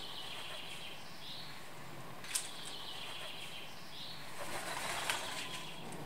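Eurasian magpie's wings flapping as it lands and flies up to a feeder, with a couple of sharp clicks. A thin, high bird call is heard twice in the background.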